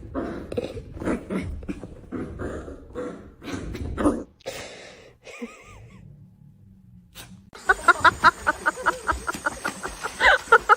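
A dog barking repeatedly for about the first four seconds, then a short lull, then a fast run of short sounds at about four or five a second.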